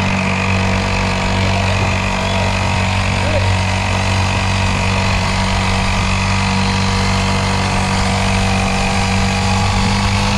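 Motorcycle engine running steadily while riding, its pitch creeping up slightly near the end.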